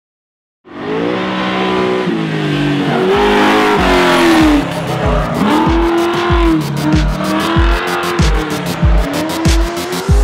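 Car sound effects, a revving engine and squealing tyres, starting under a second in, joined about halfway through by an electronic music beat with a steady kick drum about twice a second.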